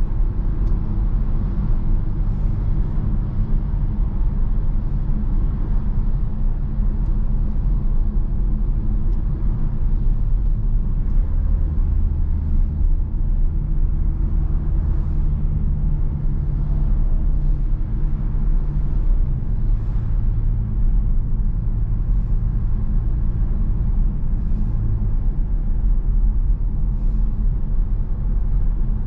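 Mercedes-Benz V-Class 300d driving, its four-cylinder diesel engine humming under a steady low road rumble. The engine note shifts in pitch a few times midway.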